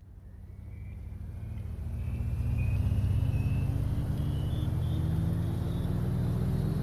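Background music: a low droning synth pad that swells in over the first couple of seconds and then holds, with a faint high tone slowly rising in pitch above it.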